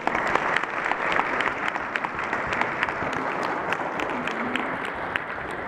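A congregation applauding, many people clapping together steadily.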